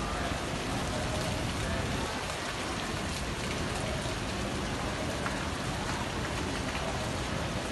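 Monsoon rain falling steadily on grass and paving.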